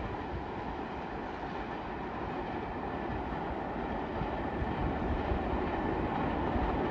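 New York City subway train running on the track, a steady rumble of wheels and running gear that grows slowly louder.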